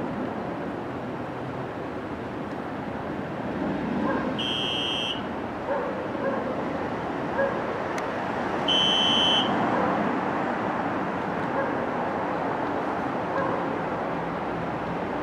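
Steady noisy hum of a subway station with a train at the platform, and a high electronic beep about two-thirds of a second long sounding twice, about four seconds apart.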